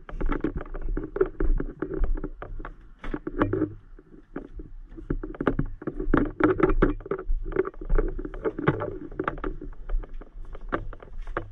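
Footsteps and handling noise of a camera carried while walking: many rapid, irregular knocks and rustles over a steady low hum.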